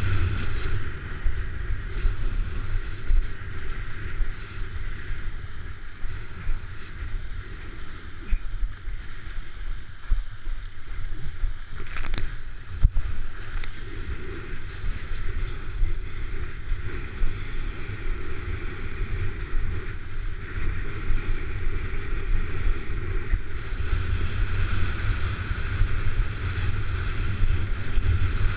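Wind buffeting a body-mounted action camera's microphone as a kiteboard planes over choppy water, with a steady rush of water and spray. A couple of sharp knocks stand out about twelve seconds in.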